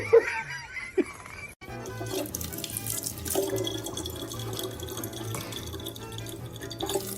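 Water running steadily, like a tap into a sink.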